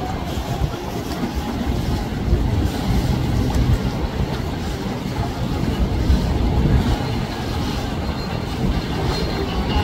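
Motorboat passing close by: a steady low rumble with the wash of churned water, and some wind on the microphone.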